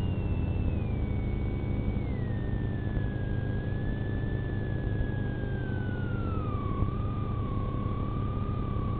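A siren tone gliding slowly downward in steps over several seconds, then holding a steady lower pitch, over a heavy low rumble.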